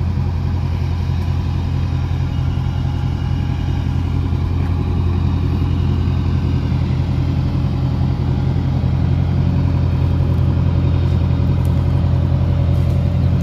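Backhoe loader's diesel engine running steadily at low revs, holding a suspended concrete ring on its arm.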